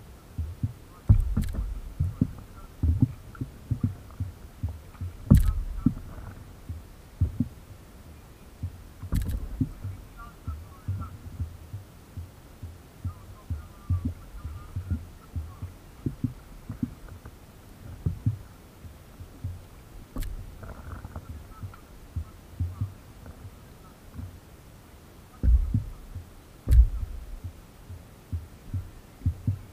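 Water slapping and knocking against the hull of an inflatable stand-up paddleboard, picked up through a camera mounted on the board: irregular low thuds, with a few sharper knocks.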